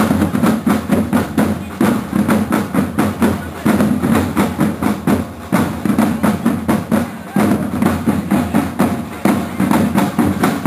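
A corps of marching drums beating a fast, steady rhythm.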